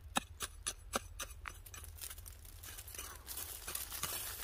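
Crunching and scraping of soil being dug away by hand around a wild balloon flower (doraji) root, with a run of sharp clicks and crackles, densest in the first second and a half.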